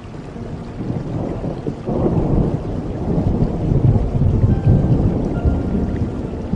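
Rain falling steadily, with a long, deep roll of thunder that swells about two seconds in and rumbles on.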